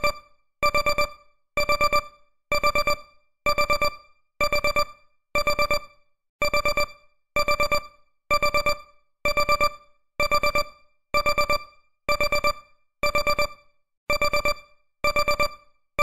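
Electronic alarm beeping in quick groups of four or five identical high beeps, one group about every second: the countdown timer has reached zero.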